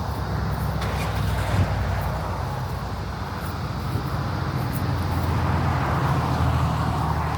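Road traffic: cars passing on the road, a steady noise of engines and tyres that swells a little in the second half.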